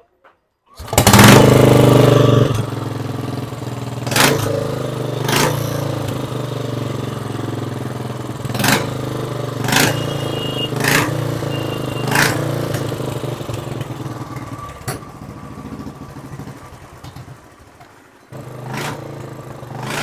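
Royal Enfield single-cylinder engine, freshly rebuilt with new piston rings, valves and hydraulic tappets, starting about a second in, running loud for a moment, then settling to a steady idle. A handful of sharp knocks sound over the running, and it drops quieter for a while near the end.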